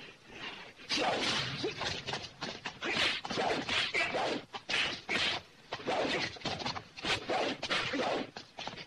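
Fight-scene sound effects from a martial-arts film: a fast run of punch and kick impacts with swishes, several blows a second.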